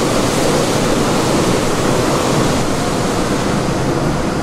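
Steady, loud rushing noise of the malt house's air-handling fans, even and unbroken.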